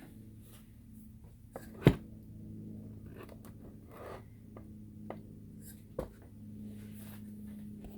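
Handling noise from the rifle: a sharp loud knock about two seconds in, a second smaller knock at about six seconds and a few faint clicks and rustles, over a steady low hum.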